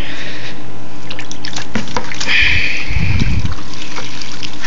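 Reef tank water running out of a siphon hose and splashing into a plastic bucket, with a few short knocks as the hose is moved from a full bucket to an empty one.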